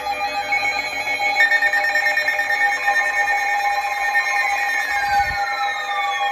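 Electronic emergency alert tones: a steady tone near 850 Hz with several higher steady tones layered over it. About four seconds in, two falling tones slide downward.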